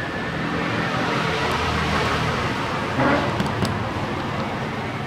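Steady background road traffic noise with an engine running, and a light knock about three seconds in.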